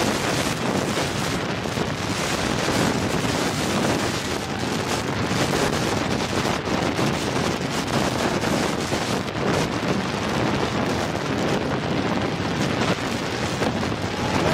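Steady rushing wind noise on the microphone of a camera riding on a racing buffalo cart, with the cart's running noise underneath.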